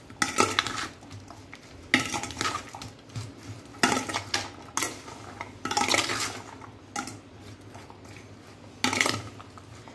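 Metal spoon stirring a chopped onion and tomato mix in a stainless steel bowl, scraping and clinking against the bowl's side in irregular strokes every second or two.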